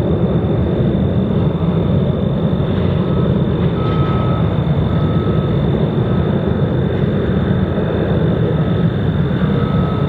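Jet airliner engines running with a loud, steady rumble. From about three seconds in, a vehicle's reversing beeper sounds about once a second.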